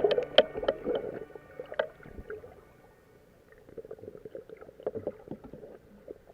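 Plucked-string background music, its notes dying away over the first couple of seconds, then a quieter stretch of faint scattered clicks.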